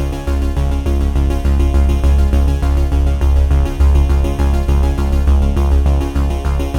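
Electronic background music with a heavy pulsing bass and a steady beat.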